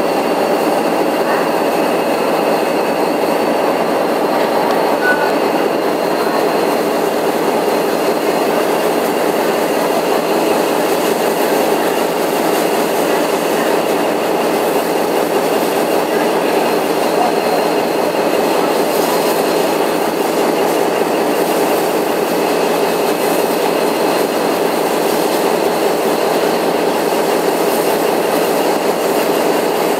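Steam locomotive R707, a Victorian Railways R class 4-6-4, standing at the platform in steam. It gives a steady, loud hiss with a few steady tones running through it and no exhaust beat.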